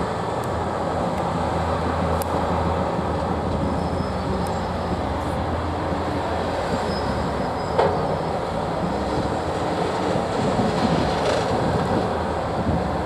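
Heavy diesel trucks and equipment running steadily in a continuous low noise, with one sharp metallic knock about eight seconds in.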